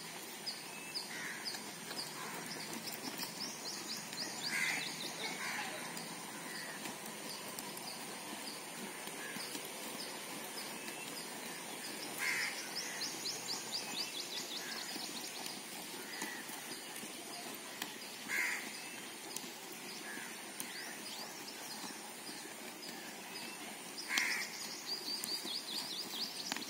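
A crow cawing about every six seconds, four loud calls in all, while another bird repeats a rapid high trill between the caws, over steady outdoor background noise.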